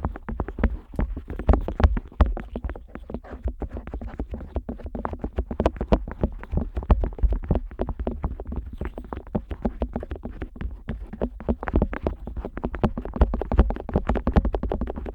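Otoscope rubbing, tapping and scraping against the outer ear of a Neumann KU100 dummy-head microphone, heard right at the ear as a dense, irregular run of soft clicks and rubbing.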